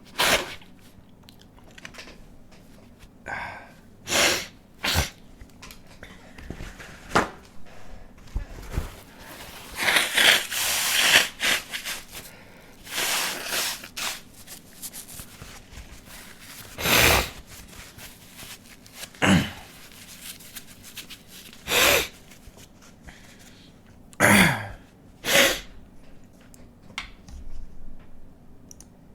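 A man sneezing again and again, with sharp breaths and sniffs in between: the sneezes are induced by tickling the inside of his nostril with a stiff paper tag. There is a longer rushing stretch of about two seconds near the middle.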